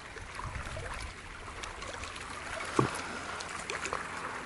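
Water and broken-up ice on a freezing lake: a steady trickling wash with scattered faint clicks, and one brief low knock about three seconds in.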